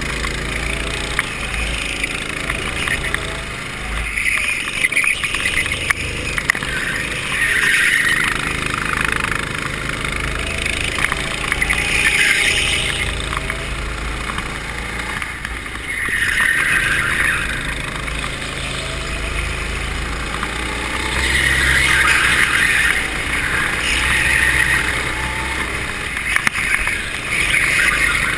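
Go-kart engine running under throttle, heard from on board the kart, its sound swelling and easing several times as the kart accelerates and slows.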